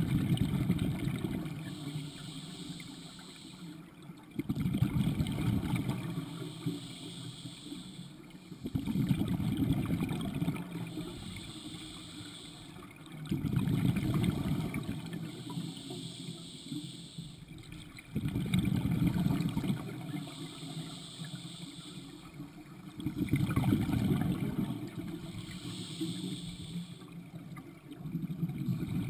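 Scuba diver breathing through a regulator underwater: a bubbling rush of exhaled bubbles about every four to five seconds, with a fainter hiss from the regulator on each inhale in between.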